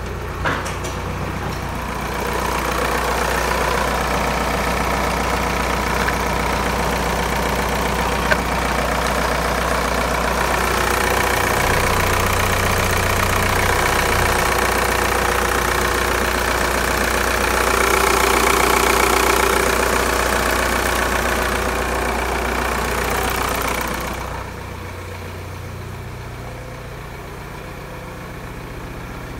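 VW Golf 3's 1.9 TDI AHU four-cylinder turbodiesel engine running steadily. It is louder from about two seconds in and drops back at about twenty-four seconds.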